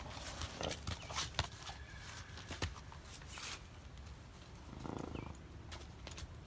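Horses' hooves stepping on a gravel lane as they are led, in scattered uneven clicks and crunches, with a short breathy rush about five seconds in.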